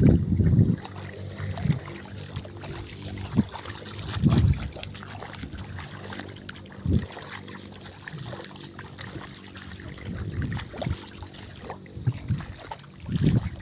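Water sloshing and splashing as people wade through shallow tidal water, with irregular low thumps.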